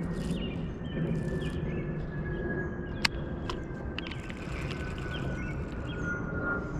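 Outdoor ambience with a steady low rumble and faint bird chirps. A faint tone falls slowly in pitch throughout. A single sharp click comes about three seconds in.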